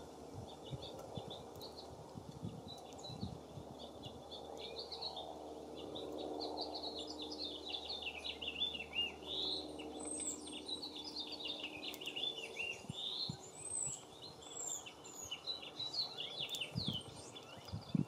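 Small songbirds singing and chirping at a feeder: rapid, high warbling phrases that run on for several seconds, busiest in the middle, with a few thinner, higher notes mixed in.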